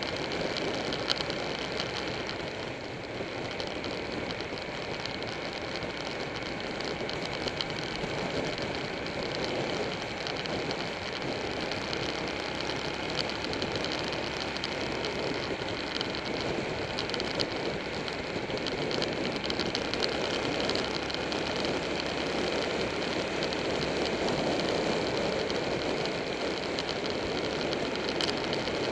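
Motorcycle engine running at road speed with steady wind rush on the mounted camera, holding fairly constant through sweeping curves.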